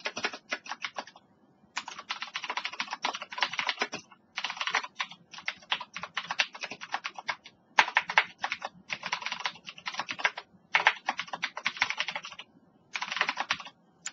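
Typing on a computer keyboard: fast runs of keystrokes with several short pauses between them.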